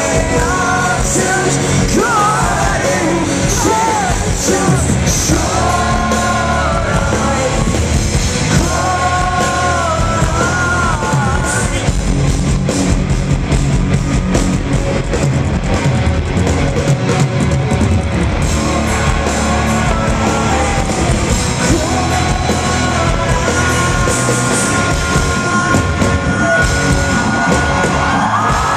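Live rock band playing loud: electric guitars and drums under a male lead vocal, with singing through roughly the first half and long held notes near the end, heard from within the crowd.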